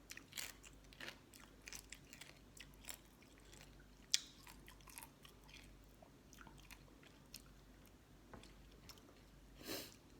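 A person chewing and biting crunchy food, spicy green mango salad with pickled sea crab, close to the mic: irregular crisp crunches and mouth clicks, with a sharper crack about four seconds in.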